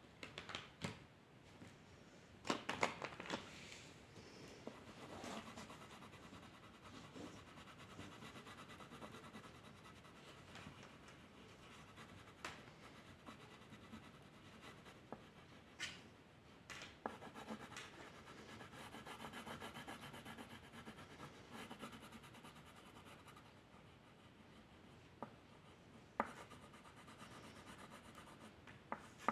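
Faint scratching and rubbing of a drawing tool on paper, in short and longer strokes, with a few sharp taps, the loudest cluster a few seconds in.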